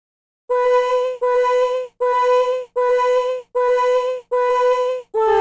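A high voice singing one syllable over and over on the same note, six evenly spaced held notes, then a slightly lower note near the end.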